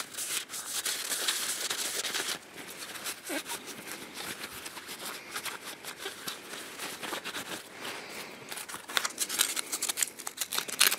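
Paper towel rubbing and crinkling as it wipes the dirty metal disc and tubes of an oil burner's nozzle assembly, with small clicks and knocks of the metal parts. The rubbing is loudest for the first two seconds, and the clicks come thicker near the end.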